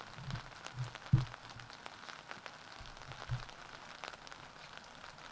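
Light rain pattering, with scattered drop ticks and a few dull thumps; the loudest thump comes about a second in.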